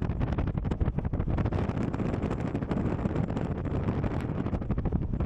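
Wind buffeting the microphone inside a moving car, over a steady rumble of road noise.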